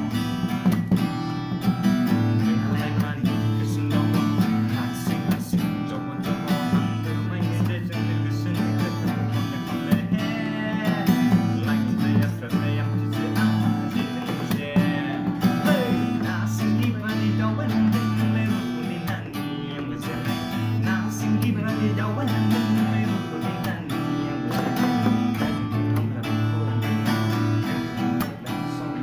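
Acoustic guitar strummed in a steady rhythm of chords, with a man singing along in places.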